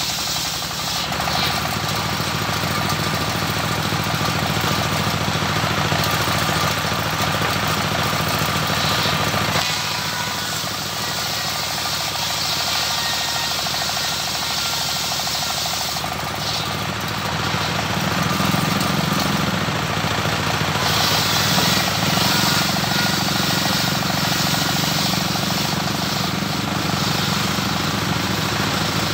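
Homemade circular-saw bench driven by a stationary engine, running steadily while its blade rips waru wood lengthwise. The sound of the cut shifts a few times as the wood is fed through.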